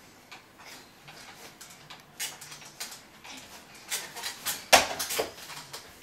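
Scattered plastic clicks and knocks from an infant swing's arms, seat and tray as a toddler grabs them and climbs in, with the loudest knock about five seconds in.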